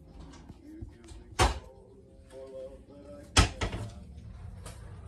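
Two sharp thumps about two seconds apart, with faint voices in the background.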